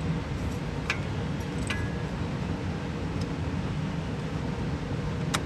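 A steady low hum in the background, with a few sharp metallic clicks as a small filter wrench is worked onto a tractor's hydraulic filter in a tight spot, one click about a second and a half in briefly ringing.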